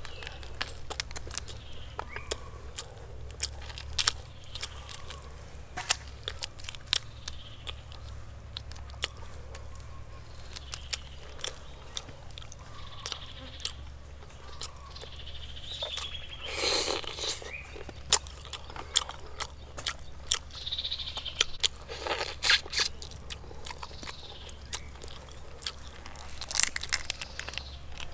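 Someone eating: irregular crunching and chewing with many sharp clicks, over a steady low hum.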